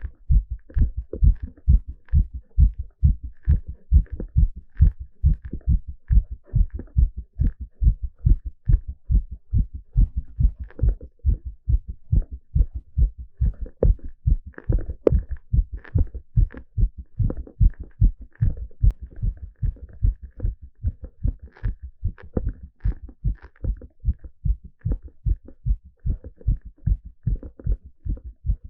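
A man's heart beating, picked up through a stethoscope on the chest: a fast, regular train of low lub-dub thumps, its rate raised by the exertion of an exercise stress test.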